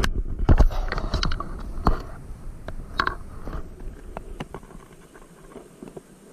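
Wind rumbling on the microphone, strongest in the first two seconds and then fading, with scattered knocks and clicks of handling in a small outrigger boat.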